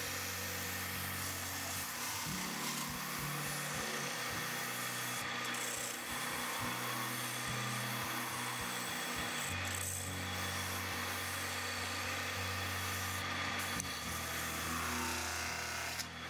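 Metal spinning on a lathe: a steel spinning tool pressed against a thin 20-gauge brass disc as it turns on a wooden form, giving a steady scraping, rubbing hiss.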